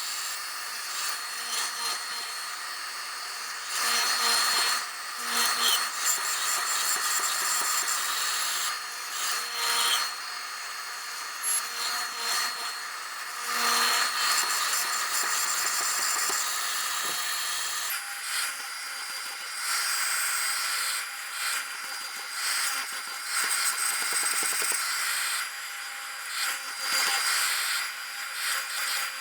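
Woodworking power machine running with a steady whine, louder cutting noise surging every second or two as wood is fed through it. The machine's pitch shifts about two-thirds of the way in.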